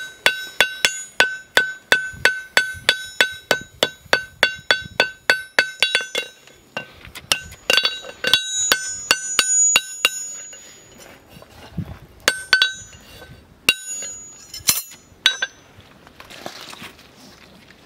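Hammer blows on a red-hot steel horseshoe held on an anvil, each strike with a clear metallic ring: a quick, even run of about three blows a second for six seconds, then scattered blows until near the end. This is hot forging, with the shoe being shaped while glowing.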